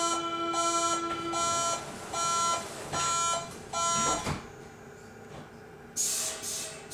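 Door-closing warning beeps on a Berlin U-Bahn IK train: a pitched beep repeated about six times, ending about four seconds in as the doors shut. A short burst of hiss follows near the end.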